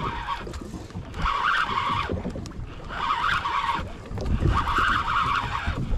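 Spinning fishing reel being cranked in three spells of winding, each about a second long, while a hooked fish is reeled in, over a low rumble.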